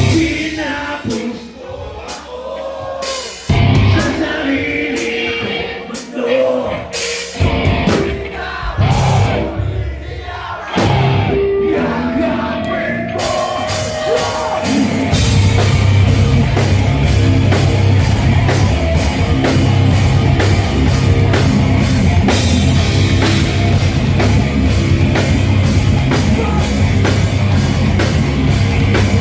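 Live rock band playing, with singing. The first half is sparse, with single drum hits and held guitar notes. About halfway through, the full band comes in with fast, steady drumming.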